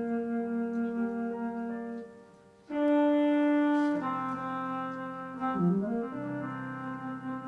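Instrumental music with long held chords and a melody line. It drops away briefly about two seconds in, then comes back with a loud held chord. Near six seconds a note slides down and back up.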